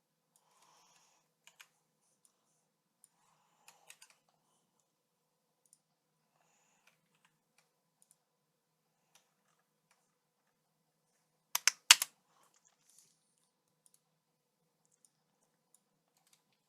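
Clicking at a computer while stepping through video frames: a few faint clicks in the first four seconds, then a quick run of four loud clicks about twelve seconds in.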